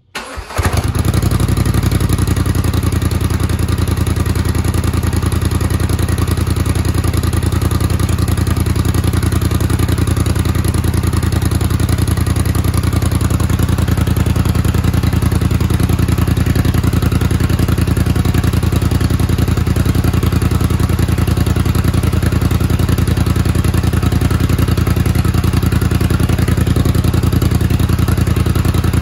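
Polaris Sportsman 850's parallel-twin engine starting up and idling steadily through a freshly installed RJWC Krossflow aftermarket exhaust.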